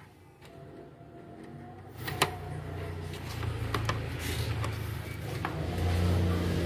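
Hands working cable connectors on a printer's main circuit board: plastic rustling with a sharp click about two seconds in and a few lighter clicks, over a low steady hum.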